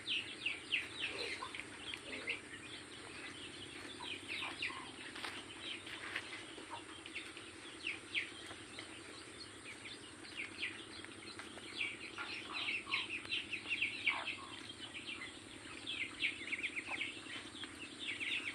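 Many birds chirping continuously: a dense chatter of short, high chirps, over a steady low hum.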